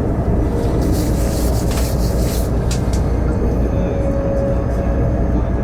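A vehicle engine running with a steady low rumble, with brief hissing noises about a second in.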